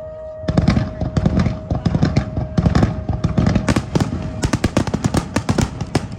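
Fireworks finale barrage: a dense, rapid run of crackling bursts and bangs that starts about half a second in and goes on without a break, with a steady tone running underneath.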